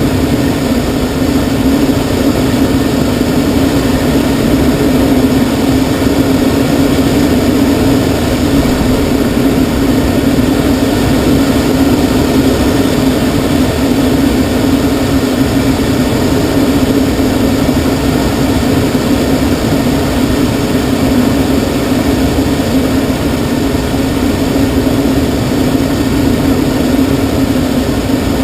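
Steady rush of air over a glider in engineless free flight, heard from inside the cockpit, with a constant low drone and no changes.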